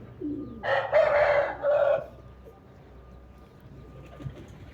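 A rooster crows once, starting about half a second in: a crow of about a second and a half in three parts, then it stops.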